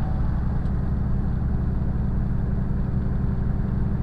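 Semi truck's diesel engine running steadily at highway speed with tyre and road noise, heard from inside the cab as a low, even drone.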